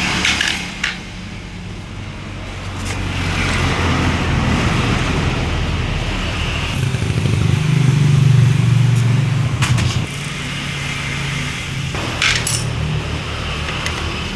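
Yamaha Vixion's single-cylinder engine running steadily, getting louder for a few seconds in the middle before dropping back about ten seconds in, with a few sharp clicks over it.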